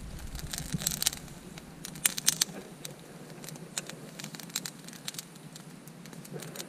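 Yerba mate leaves crackling and popping in a campfire's flames as the branches are scorched (sapeco) to break the leaf cuticle: irregular sharp snaps over a faint fire hiss, the loudest about two seconds in.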